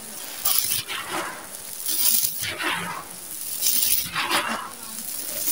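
Dry, gritty sand-cement mix with small stones being raked, scooped and crushed by bare hands on a hard floor: several crunching, grainy swishes in a row, each under a second, with grit skittering on the concrete.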